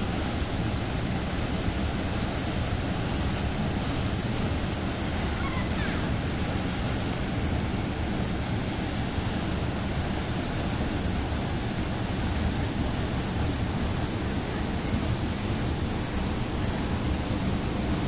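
Waterfall pouring into a rock pool, with turbulent whitewater churning below it: a steady, unbroken rush of water.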